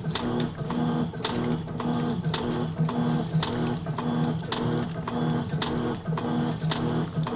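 Electrolux LM06 top-load washing machine running its wash cycle: a steady motor hum broken by a regular knock about twice a second.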